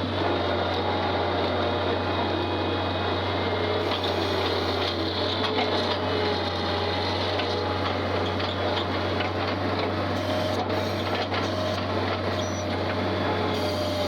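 Skid steer engine running steadily under load while carrying a bale, a constant low drone with a few fainter higher whining tones that shift slightly in pitch.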